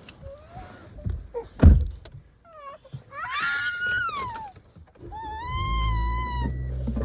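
Samoyed puppy whining in two high, drawn-out cries, the first rising then falling, the second steadier. A loud thump comes about a second and a half in. A car engine starts up and runs low under the second whine.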